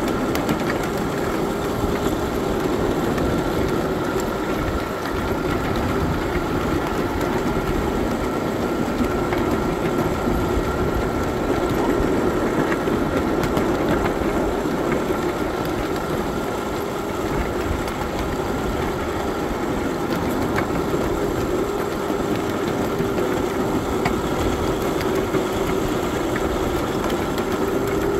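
7.5-inch gauge miniature train running along the track, its engine giving a steady drone with a low rumble from the running gear.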